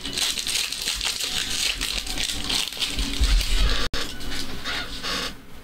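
Foil wrappers of 2024 Topps Cosmic Chrome trading-card packs crinkling as they are torn open, with chrome cards being handled, making a dense, irregular crackling rustle. A dull low thump comes about three seconds in, and the rustle dies away near the end.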